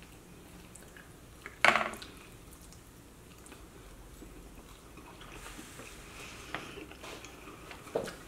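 Close-up eating sounds of chicken wings: quiet chewing and wet mouth noises as meat is pulled off the bone, with a short loud wet smack about one and a half seconds in and a smaller one near the end.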